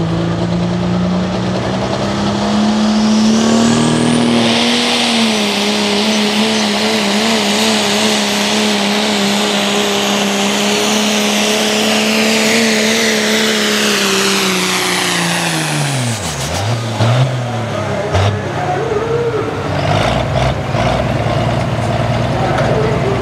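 A pulling vehicle's engine held at high revs under load, with a high whine slowly falling in pitch above it. About sixteen seconds in the engine note drops away sharply as the throttle is cut, followed by a few knocks and clanks.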